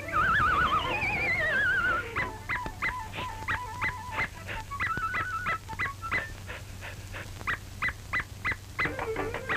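Early cartoon soundtrack music with comic effects. A wobbling, falling whistle-like glide opens it, followed by a run of short sharp notes about three a second over a held high note.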